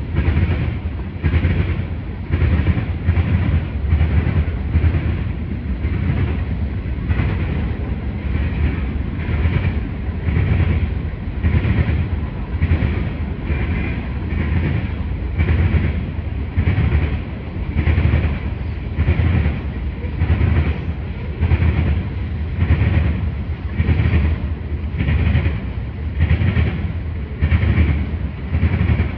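BNSF freight train's tank cars and covered hopper cars rolling past, the wheels making a steady, regular clatter a little faster than once a second.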